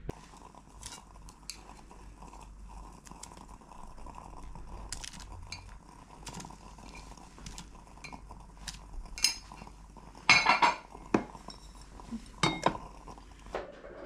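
Ceramic dishes and glassware clinking and knocking on a table as they are set down and moved, in scattered light clicks, with a louder cluster of clinks about ten seconds in and another about two seconds later.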